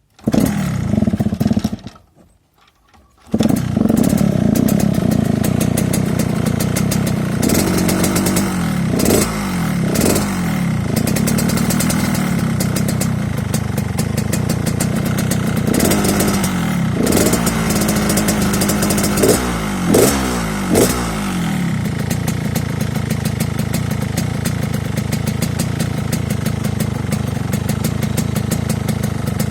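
Yamaha RX-King two-stroke single-cylinder engine through a Medan-style 'ngorok' (snoring) exhaust, breathing through a shortened stock air filter. It drops away for about a second near the start and comes back, is blipped with the throttle several times in rising revs, and then settles into a steady idle.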